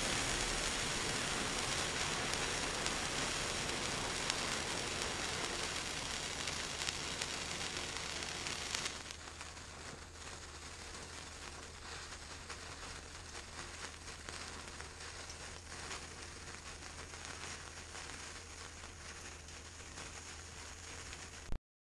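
Indoor fireworks fizzing and sizzling on a metal tray: a steady hiss that drops quieter about nine seconds in, then fainter crackling and sputtering of sparks until it cuts off suddenly near the end.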